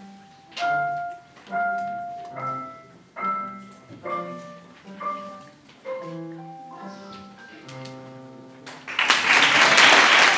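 Piano duet played by two people at one digital piano, a slow phrase of single struck notes over a bass line ending on a held chord; about nine seconds in, loud audience applause breaks out.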